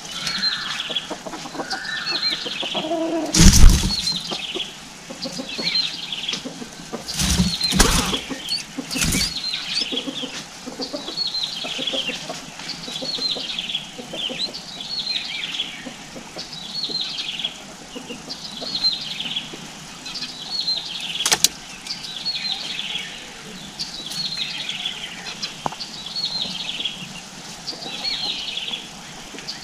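Red-whiskered bulbuls giving short, repeated chirping calls, about one a second. Several loud thumps come in the first ten seconds, the loudest a few seconds in.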